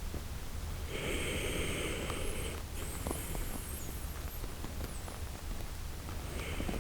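A sleeping Shiba Inu snoring: two long, noisy breaths, one about a second in and another near the end.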